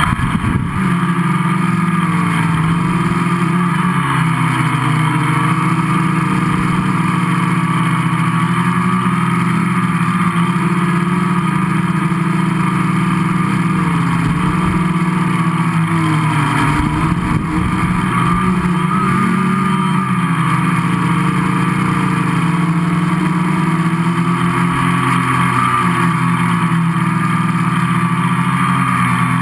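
Gaui 500X quadcopter's four brushless motors and propellers running through take-off and flight, heard from a camera on the frame: a loud, steady multi-tone buzz whose pitch wavers slightly as the throttle changes.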